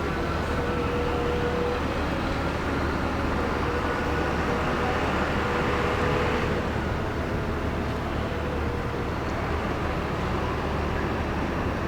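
Steady engine and traffic noise of buses and other vehicles, with a faint held tone coming and going a few times.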